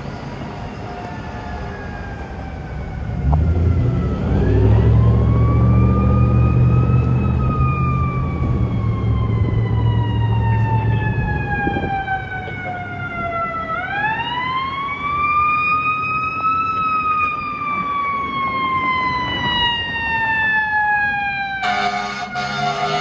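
Fire truck siren wailing in long, slow sweeps up and down in pitch, with a heavy engine rumble swelling about three seconds in and fading after about eleven. Near the end the truck's air horn blasts in short bursts over the siren.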